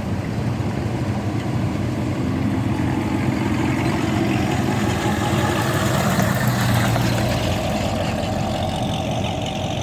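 Car engine running at low speed, a steady low rumble that swells slightly about midway.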